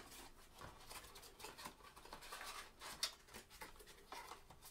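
Faint rustling and scraping of a cardboard trading-card blaster box being opened and its paper-wrapped packs slid out by gloved hands, with scattered light clicks. The sharpest tick comes right at the start, another about three seconds in.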